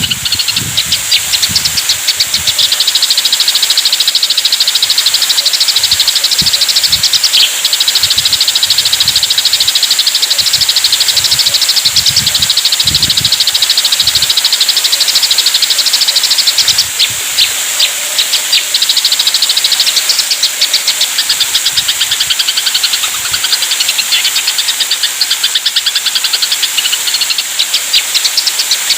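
Eurasian tree sparrows (burung gereja) squabbling in a fight, a dense, rapid chatter of chirps that runs almost without a break. There are a few low thumps in the first half.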